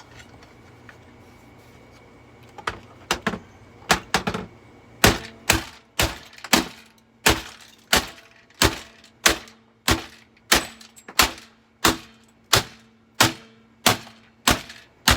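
Repeated hard blows striking a Eureka The Boss bagged vacuum cleaner as it is smashed apart. A few scattered knocks come about two and a half seconds in, then a steady run of sharp strikes about one and a half per second.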